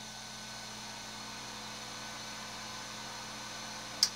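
Steady hiss with a faint electrical hum, and a single sharp click about four seconds in.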